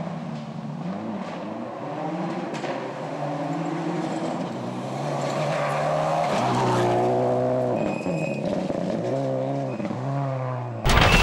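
Subaru Impreza WRX STI rally car's turbocharged flat-four engine driven hard along a gravel stage, its note climbing and dropping repeatedly with gear changes and lift-offs. The car is loudest about two-thirds of the way in as it goes past.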